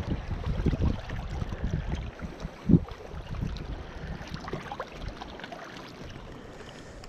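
Wind buffeting the microphone in an uneven low rumble that eases off in the second half, with one short thump about three seconds in.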